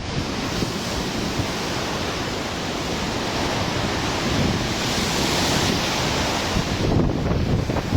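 Storm wind blowing hard, with a dense, steady rush of noise and gusts buffeting the microphone, a little stronger near the end.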